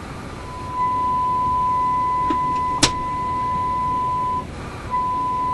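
Steady high-pitched test tone, the modulation of a signal generator's test signal, coming through the RCA A25 tube radio's speaker as the signal is tuned in during alignment. The tone strengthens about a second in, drops out briefly near the end and comes back, with one sharp click midway. The signal is received near 6.4 MHz rather than at the 6.1 MHz dial mark: the band is well out of alignment.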